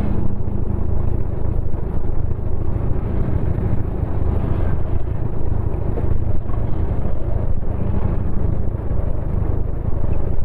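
Motorcycle riding noise: a steady low rumble of the engine and the air rushing past, picked up by a phone's microphone on the moving bike.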